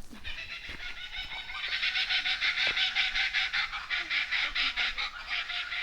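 A flock of birds calling densely at their roost at dusk, settling in for the night: a fast, even chatter that swells about a second and a half in.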